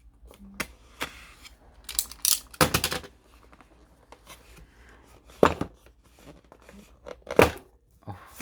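Packaging of a product box being opened by hand: irregular tearing and crinkling with sharp knocks and scrapes, the loudest bursts around two to three seconds in and again near five and a half and seven and a half seconds.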